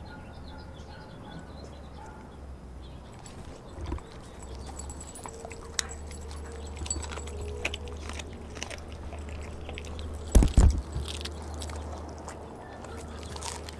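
A dog picking up, mouthing and sniffing a piece of raw meat on a tile floor, with small clicks and jingles from its claws and collar tag. A loud double thump comes about ten and a half seconds in, over a steady low rumble.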